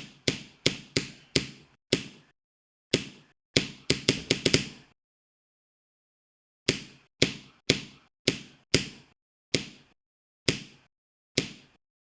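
A series of sharp clicks with short decaying tails, irregularly spaced: a quick flurry about four seconds in, a pause of nearly two seconds, then single clicks spaced further apart toward the end.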